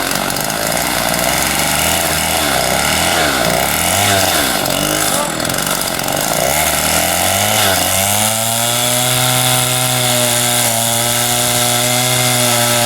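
Chainsaw cutting a tree, its engine pitch rising and falling under load, then settling to a steady even pitch about eight seconds in.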